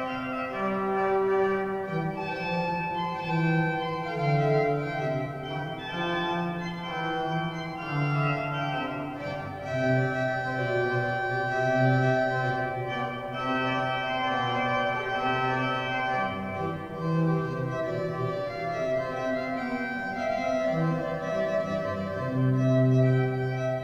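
Church pipe organ playing a slow piece of held chords, the notes changing every second or two with several voices moving at once.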